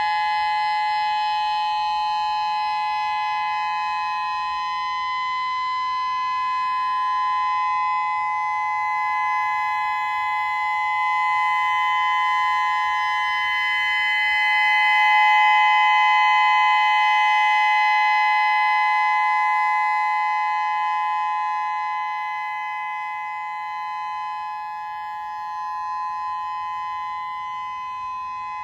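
Whelen WPS-3000 electronic outdoor warning siren sounding a steady alert tone during its test: a pair of close, held tones that do not glide. The sound swells to its loudest about halfway through and eases off again near the end.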